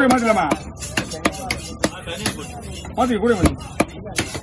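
Heavy knife chopping a fish fillet into chunks on a wooden log block: a quick, even run of sharp chops, about three a second.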